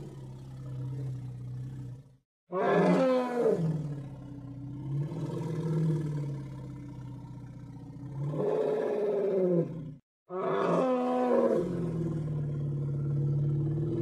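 Mammoth roar sound effect: long, low, bellowing calls over a steady deep tone. Twice the sound cuts out briefly and a loud roar bursts in, sliding down in pitch over about a second before settling back into the low drone.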